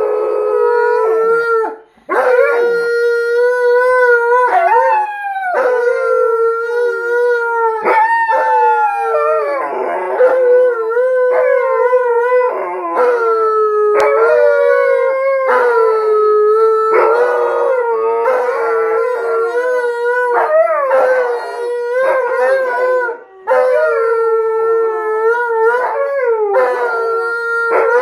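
Two Alaskan malamutes and a blue bay shepherd howling together, several long howls overlapping and wavering in pitch, with two brief gaps, one about two seconds in and one a little past twenty seconds.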